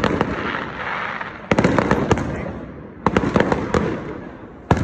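Aerial firework shells bursting overhead, four volleys about a second and a half apart. Each begins with a quick cluster of sharp bangs and crackles and then fades away.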